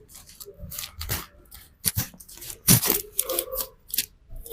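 A barber's hands working a customer's head in a massage: a run of irregular sharp slaps and scratchy rubbing, the loudest strike a little past the middle.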